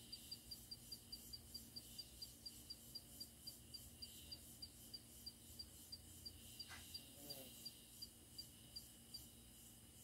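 Faint cricket chirping: short, high chirps at one pitch, evenly repeated a bit under four times a second, stopping about nine seconds in. A brief falling call sounds once near the seven-second mark.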